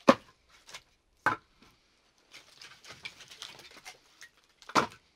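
Pieces of split firewood being set down onto a stack, clacking wood on wood: three sharp knocks, one at the start, one just over a second in and one near the end, with faint rustling of wood chips and splinters between.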